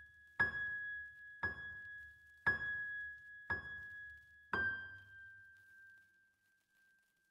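A single high, bell-like keyboard note repeated about once a second, five times, the last one left to ring out and fade as the track ends.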